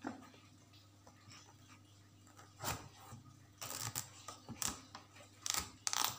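Kitchen knife cutting through a red pumpkin's firm rind and flesh on a plastic cutting board: a handful of short cutting strokes, most of them in the second half.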